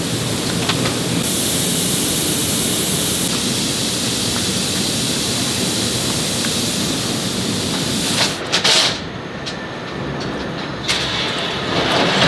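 Steady factory machinery noise: a low rumbling hum with a hiss. A louder high hiss comes in for about two seconds near the start. A couple of short louder bursts come about eight seconds in, after which the hiss thins out, and another burst comes near the end.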